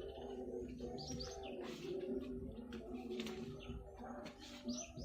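Doves cooing steadily in the background, with small birds giving short high chirps a few times over it and scattered light clicks.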